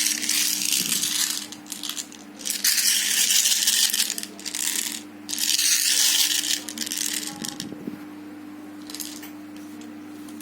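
Plastic airsoft BBs rattling as they are poured and shaken into the spring gun's magazine, in three long bursts over the first seven seconds, then quieter.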